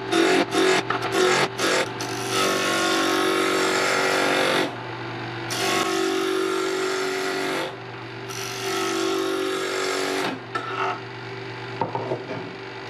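Harbor Freight 10 x 18 benchtop mini wood lathe spinning a wooden blank between centers while a hand-held turning tool rounds it off. In the first couple of seconds the tool knocks in quick, uneven strikes against the out-of-round blank. Then come three long passes of steady cutting hiss over the motor's hum, and the cutting stops about ten seconds in.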